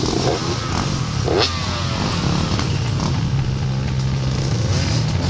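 Off-road motorcycle engines running, with one engine note falling in pitch between about one and three seconds in.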